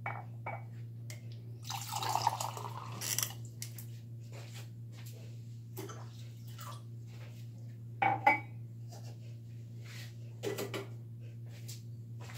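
Kitchen handling sounds over a steady low hum: about a second and a half of water splashing, then crockery knocking on the counter a few times. The loudest knock is a mug being set down, about eight seconds in.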